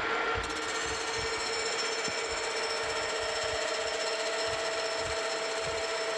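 Metal lathe boring out an extruded bronze bar with a 1-inch boring bar on the first cut: a steady cutting hiss over a steady whine, with a second, higher tone coming in a little after halfway. The extruded hole is not perfectly round, so the tool takes more off one side, and the long boring bar is prone to vibration.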